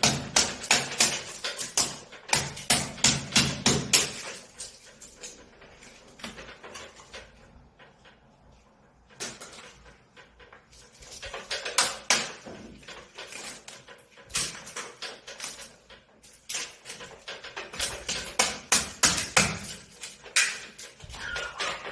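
Hammer striking repeatedly, about three blows a second, in several runs with short pauses between them.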